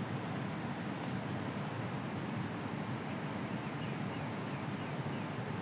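River water rushing steadily over rocks, with an insect's high, even pulsing trill of about five pulses a second over it.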